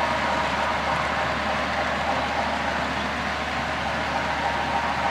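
HO scale model freight cars rolling steadily along the track, a continuous even rolling noise, mixed with the steady hubbub of a busy exhibition hall.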